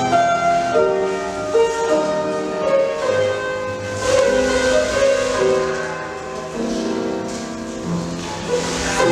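Piano music in slow, held chords, playing as accompaniment to a ballet barre exercise.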